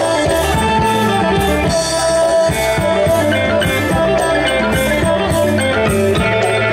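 Live Isan folk music from a pong lang band, pitched melody lines over a steady drum beat.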